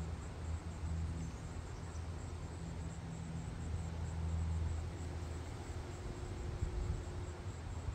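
Outdoor ambience: a steady low hum, like a distant motor, that fades about halfway through, with faint high insect chirping.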